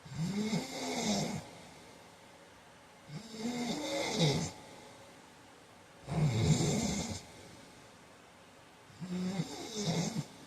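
A man snoring in his sleep: four snores about three seconds apart, each lasting roughly a second.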